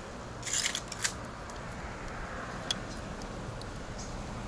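Small clicks and rustling as fingers handle the wires and plastic connector of a motorcycle wiring harness, working a crimped terminal pin toward its cavity: a short rustle about half a second in, a sharp click about a second in and another near three seconds. A steady low hum runs underneath.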